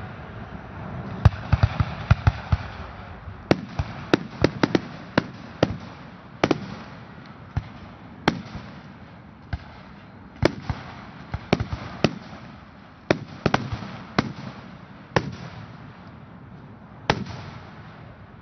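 Aerial firework shells bursting, a string of sharp bangs. In the first six seconds they come in quick clusters of several bangs, then they thin out to one every second or two.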